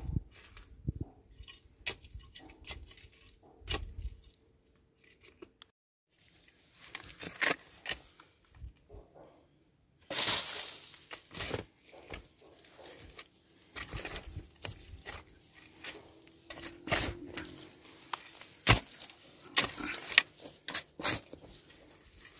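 A long-handled shovel digging and turning over dry, straw-strewn soil: irregular crunching and scraping strikes as the blade bites in and dry stalks and twigs crackle. They grow louder in the second half.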